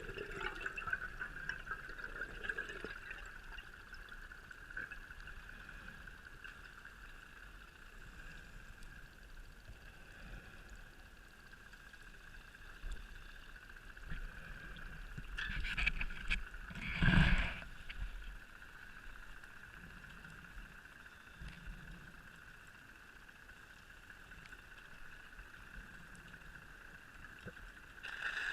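Underwater sound on a scuba dive: a steady high hum runs throughout, and a loud gush of exhaled regulator bubbles comes about 16 to 17 seconds in.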